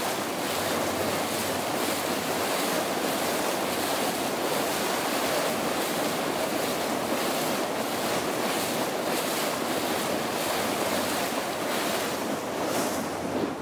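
Motorboat under way: a steady rush of wind and churning wake water, with wind buffeting the microphone.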